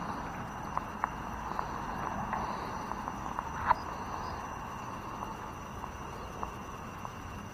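Faint steady insect chirping over a low hiss, with scattered small taps and clicks and one sharper click about three and a half seconds in.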